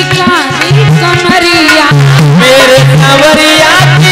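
Live Hindi devotional bhajan: a woman singing a gliding melody over a steady drum beat, played loud through a sound system.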